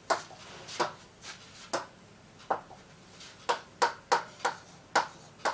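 Stylus tapping and dragging on the glass face of an interactive touchscreen board as a word is handwritten: about a dozen short, sharp clicks at an uneven pace.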